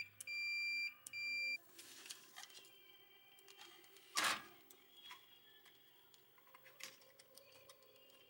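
A multimeter's continuity beeper sounds twice in steady tones as a tactile switch is pressed, the switch making contact. A soldering iron then works on a circuit board's switch pins, with faint scattered clicks and a brief louder burst of noise about four seconds in.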